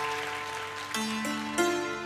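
Cimbalom played slowly, single notes struck with hammers and left to ring on and overlap. One note is already sounding, and three more come in during the second half, each struck sharply and then fading slowly.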